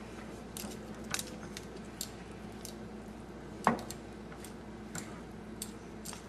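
Light clinks and clicks of kitchen utensils against cookware, with one louder knock about halfway through, over a steady low hum.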